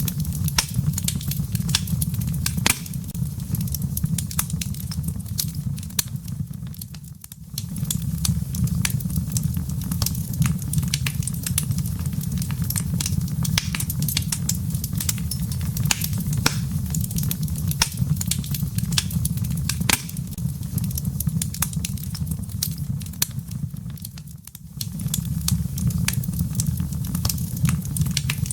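Wood fire in a fireplace crackling steadily, with dense sharp pops and snaps over a low rumble of the burning logs. The sound briefly fades and returns twice, about seven seconds in and near the end.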